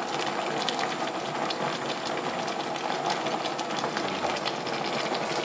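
Pot of soup boiling: a steady bubbling with many small pops.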